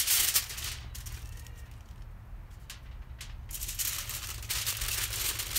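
Heavy-duty aluminium foil crinkling as it is folded and wrapped into a packet, dense in the first second and again from about three and a half seconds in, with a quieter stretch and a few single crackles in between.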